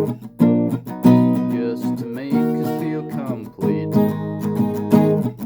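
Acoustic guitar strummed in chords, playing a song.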